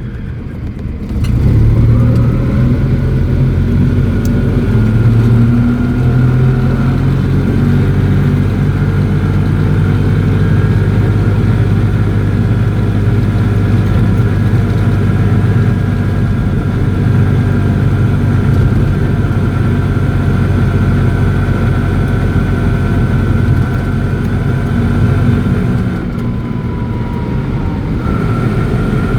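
Invacar's engine and belt-drive transmission heard from inside the cabin while driving: it picks up about a second in and runs steadily, easing off briefly near the end before picking up again. A thin high whine runs over the engine, which the driver suspects is a bearing going in the transmission.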